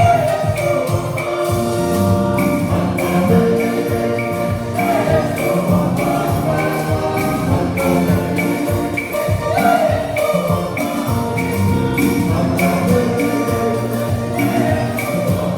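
Church band music with a steady beat: percussion with jingling over held chords.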